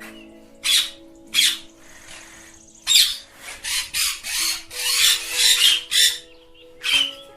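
Ringneck parakeets squawking in short harsh calls: a few single calls, then a rapid run of them in the middle, over background music with long held notes.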